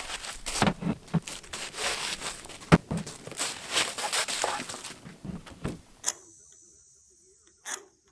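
Rough-cut lumber boards being handled and loaded: repeated wooden knocks, clatter and scraping, with one sharp knock about three seconds in. The sound cuts off abruptly about six seconds in, leaving only a single faint click.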